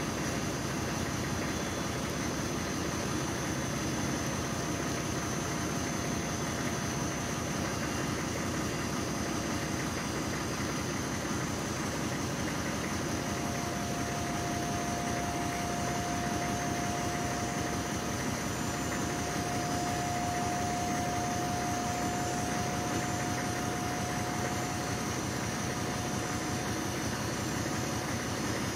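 Dump truck's engine idling while its hydraulic dump bed lowers, with a steady whine from the hoist that grows louder about halfway through.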